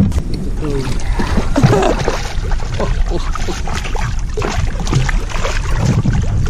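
Large largemouth bass thrashing at the surface beside a boat while hooked on a line, making a run of irregular splashes in the water.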